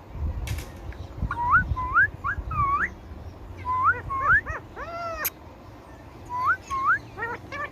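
Indian ringneck parrot giving short, rising whistled calls in three quick groups, each of about four notes. There is a sharp click about half a second in.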